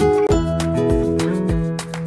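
Background music with held melodic notes over a steady beat.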